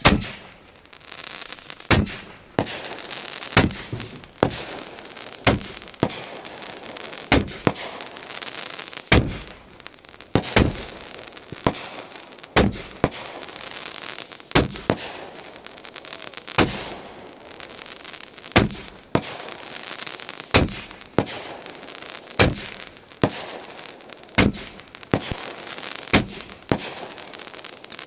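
Multi-shot consumer fireworks firing shot after shot overhead: sharp bangs about once a second, many in pairs half a second apart (a launch then its burst), with hissing between them.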